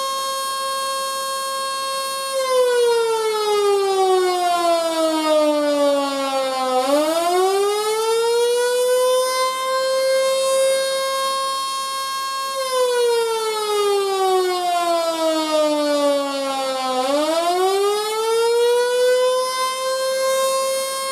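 Electric Model 2 outdoor siren (220 V, built around 1911) sounding the attack signal. It holds its full pitch, winds down about an octave over some four seconds, then climbs back up to full pitch, and it goes through this fall and rise twice.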